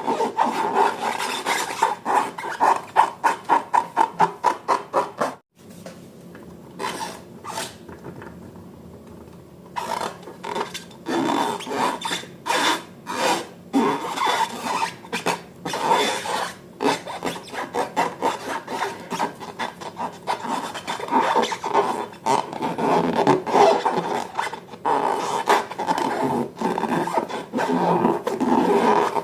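Rubber balloons and slime being handled, rubbing and rasping. About four quick strokes a second come first; after a sudden break about five seconds in there is a quieter stretch, then an uneven run of rubbing and scraping.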